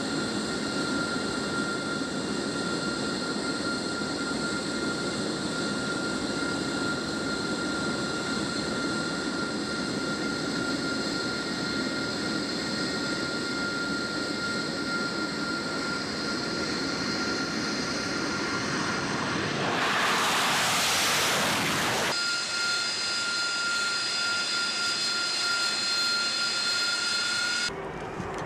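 AV-8B Harrier II jet engine, a Rolls-Royce Pegasus turbofan, running at high power on the runway: a steady jet roar with a high whine riding on it. About two-thirds of the way through, a louder hissing blast lasts a couple of seconds.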